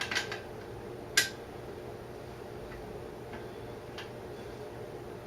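A few sharp metal clicks of a wrench working the brake torque link fastener on a motorcycle's rear brake, the loudest about a second in, then two faint ticks, over a steady low hum.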